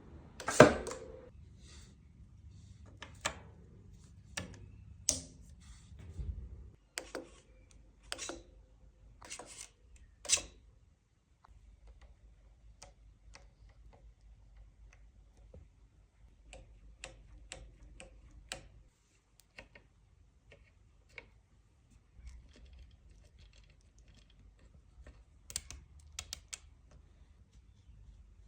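Scattered sharp clicks and light knocks of hard objects being handled, with one loud knock about half a second in and the rest coming irregularly and more sparsely after the first ten seconds.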